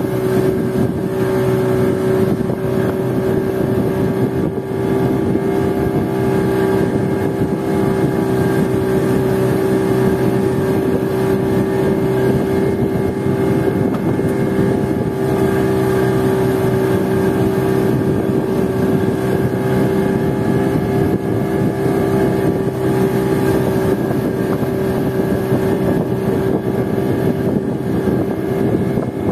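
Outboard motor on a small wooden fishing boat running steadily under way at trolling speed, a constant even drone.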